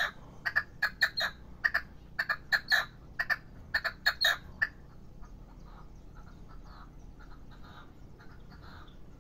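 A caged young male red-legged partridge, kept as a hunting decoy, calling: a quick run of short, sharp notes, often in pairs, about four a second, that stops about four and a half seconds in and gives way to softer, quieter notes.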